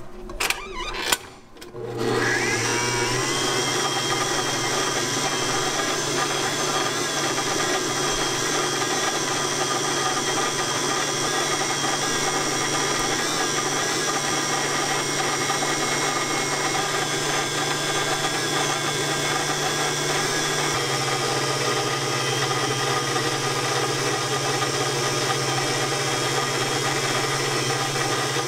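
Electric stand mixer with a wire balloon whisk whipping a white liquid in a stainless steel bowl: after a few clicks, the motor spins up with a rising whine about two seconds in, then runs steadily. Its low hum shifts slightly about twenty seconds in.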